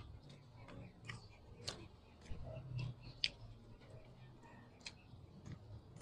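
Quiet eating by hand close to the microphone: scattered soft clicks and smacks of chewing, with a faint low hum underneath.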